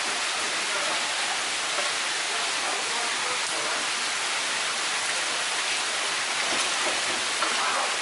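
Steady rush of running water.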